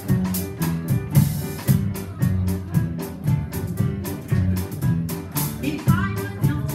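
Live band music with a quick steady beat over a repeating bass line, accompanying a stage number.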